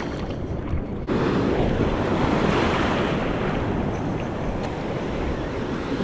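Wind buffeting the microphone over small surf washing onto a sandy beach. About a second in, the wash of the water becomes louder and fuller.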